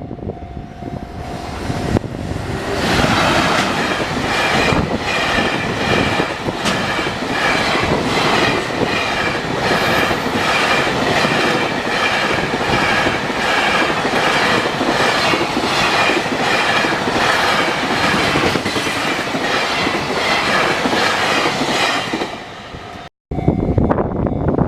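A train passing close by at speed, its wheels clattering in a steady rapid rhythm over the rail joints for about twenty seconds before fading away.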